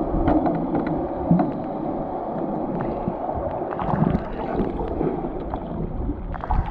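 Muffled underwater sound from a camera held below the surface among swimmers: a steady rush of water with scattered small clicks and pops.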